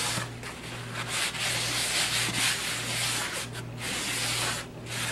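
A rag rubbed over a textured painting canvas in repeated irregular strokes, wiping off part of the freshly brushed gray toning paint.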